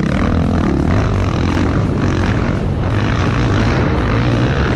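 Sport ATV (quad) engines running at speed, a loud steady drone.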